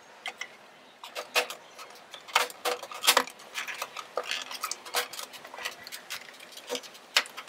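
Irregular plastic clicks, taps and knocks from the APC Back-UPS RS 600's plastic casing as its top cover is fitted back onto the case and the unit is tipped over by hand. The clicks start about a second in.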